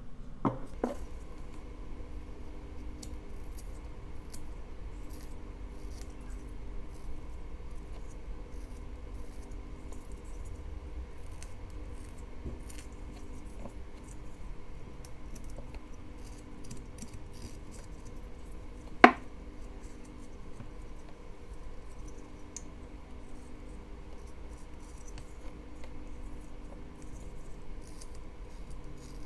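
Whittling knife slicing thin shavings from a basswood figure: a run of small, quick scratching cuts and clicks. Two louder clicks come right at the start and a single sharp knock about nineteen seconds in, over a steady low hum.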